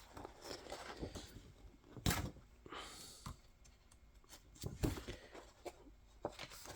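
Paper rustling as a folded poster is handled and opened out: soft scattered crinkles and clicks, with two louder crackles about two seconds and five seconds in.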